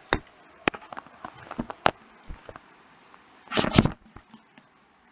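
A scatter of sharp clicks and taps, then a louder, short double burst of noise a little after three and a half seconds in.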